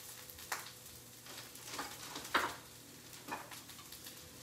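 Faint sizzling of Brussels sprouts browning in a frying pan, with about four light knocks of kitchen handling; the loudest comes a little past halfway.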